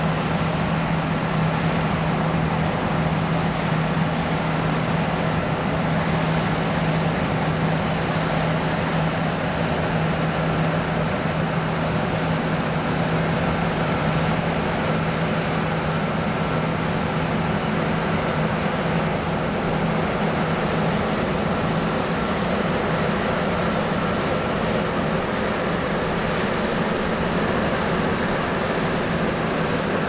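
John Deere T670i combine harvester cutting and threshing winter barley: a steady mechanical drone with a constant low hum, which eases slightly about two-thirds of the way through.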